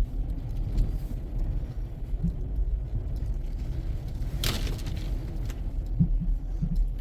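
Low, steady rumble of a car heard from inside the cabin, with a short rustle about four and a half seconds in.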